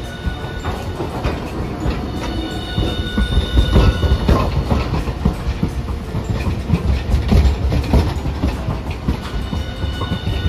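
Hiroden 5200-series Green Mover APEX low-floor tram rolling past close by. Its wheels knock irregularly over the rail joints and points under a steady low rumble, which grows louder about three seconds in.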